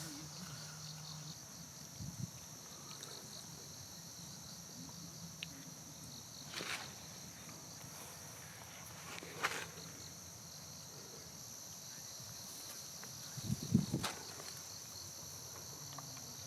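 Crickets chirring steadily in a high, pulsing trill, with a few soft knocks or thumps, the loudest one near the end.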